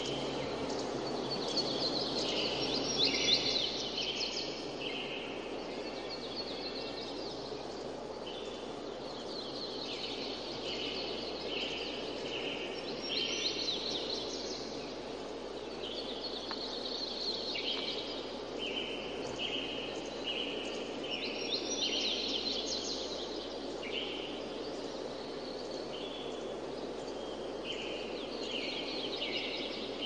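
Birds singing and calling in repeated short phrases over a steady rushing background noise.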